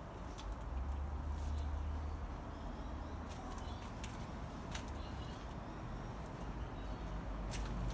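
Kawasaki ZX-6R 636 inline-four idling through a Scorpion aftermarket exhaust, a steady low rumble, with a few faint clicks over it.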